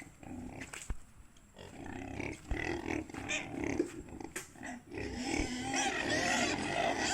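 Pigs grunting and squealing, several at once, the calls getting busier and louder after about five seconds.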